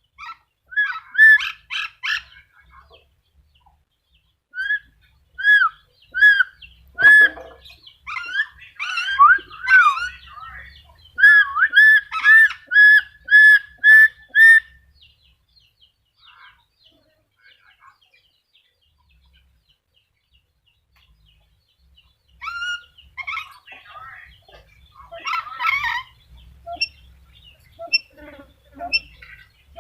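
Black-capped lory calling: runs of loud, repeated whistled notes, about two a second at their fastest. The calls pause for several seconds in the middle, then come back as quicker, more varied chattering near the end.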